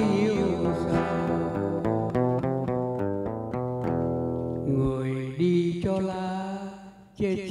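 Acoustic guitar playing a melodic run of quick single notes as the accompaniment to a slow Vietnamese ballad. The sound briefly drops away about seven seconds in, then the guitar comes back.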